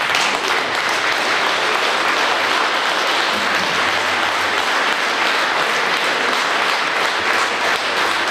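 Audience applauding: dense, steady clapping from a crowd in a hall.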